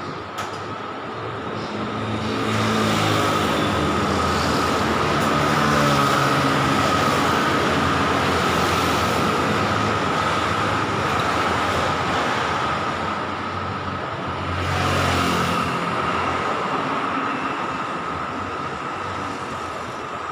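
Road traffic: cars and a motor scooter passing close by, tyre and engine noise swelling as each vehicle goes past, loudest from about two seconds in and again around fifteen seconds. A steady high-pitched tone runs underneath.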